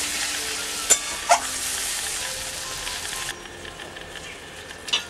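Onion, tomato and spice masala sizzling in hot oil in a pan while it is fried down (kashano) and stirred with a metal spatula, with two sharp spatula scrapes about a second in. The sizzling cuts off abruptly about three seconds in, and a short sharp sound follows near the end.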